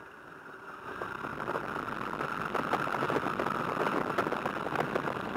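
de Havilland Tiger Moth's Gipsy Major four-cylinder engine running at low power with a rapid, uneven beat as the biplane taxis on grass, growing louder over the first second or so and then holding steady.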